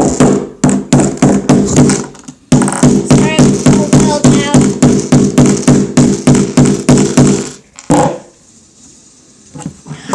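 Rapid, loud knocking, about four strikes a second, as a loose Rubik's Cube piece is pounded to force it down into place. Each knock rings briefly. There is a short pause about two seconds in, and the pounding stops near the end with one last knock.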